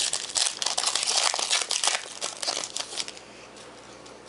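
Trading card pack wrapper crinkling and crackling as it is handled, dense for about three seconds and then dropping away.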